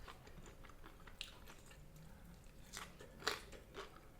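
A person chewing and crunching broccoli close to the microphone. It comes as a string of small crisp crunches, the loudest a little over three seconds in.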